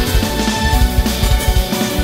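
Background music with a fast, driving beat under sustained held notes.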